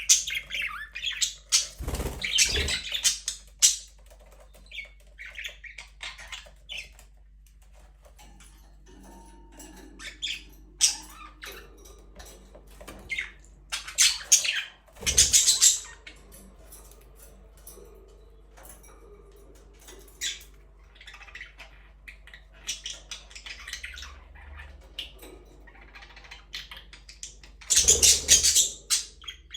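A flock of budgerigars chattering and squawking in bursts of high-pitched calls, loudest near the start, about halfway through and near the end, with scattered quieter chirps between. A faint steady low hum lies underneath.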